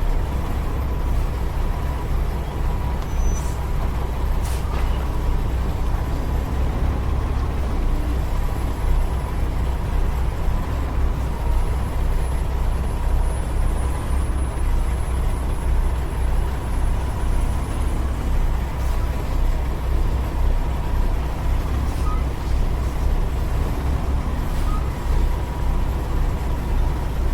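Semi-truck diesel engine running steadily at low revs with a continuous low rumble while the rig is backed into a loading dock.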